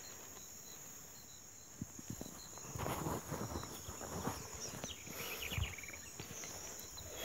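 A steady high insect trill runs throughout. From about two seconds in, footsteps swish and scuff through grass and brush, the loudest thing heard.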